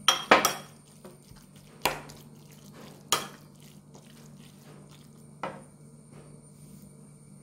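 Steel spoon clinking against a ceramic bowl as it scoops and stirs a tuna mixture: about five sharp clinks, two close together at the start, then single ones spaced a second or more apart.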